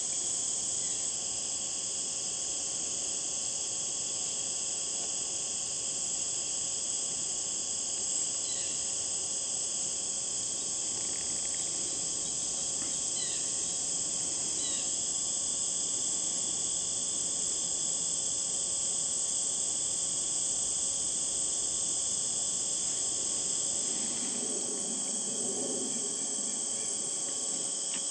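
A steady chorus of crickets and other insects, several high pitches sounding at once. A few short chirps come through in the middle.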